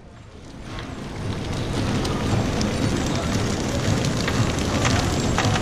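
Factory packing line running: a flow-wrap packaging machine wrapping pieces of pistachio nougat gives a steady dense mechanical clatter and hiss. It rises over the first two seconds, and a few sharp clicks come near the end.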